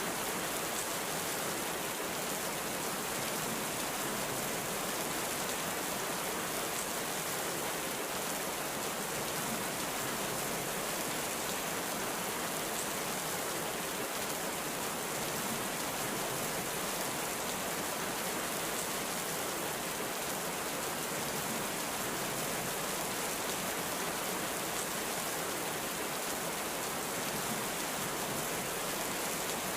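Heavy rain falling, a dense, even hiss that stays steady throughout, with no thunder.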